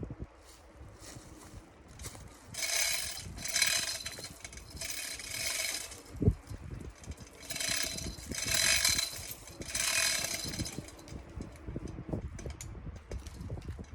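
Recoil starter cord of a Stihl MS 170 chainsaw pulled six times at uneven intervals, each pull a short rasp. The engine does not catch, and there is a single knock about six seconds in.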